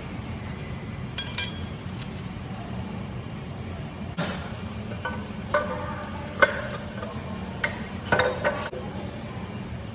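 Metal tools and engine parts clinking and knocking during diesel engine reassembly, with several sharper ringing metal strikes about four, five and a half, six and a half and eight seconds in, over a steady low hum.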